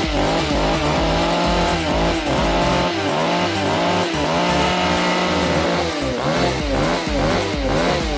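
Two-stroke petrol engine of a Vermogen 5220 chainsaw, running with no bar or chain fitted while it warms up, revved up and down over and over, the revs coming quicker near the end.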